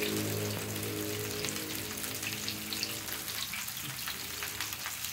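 Food sizzling and crackling in hot oil in a pan. A steady low hum sounds underneath for the first three seconds or so.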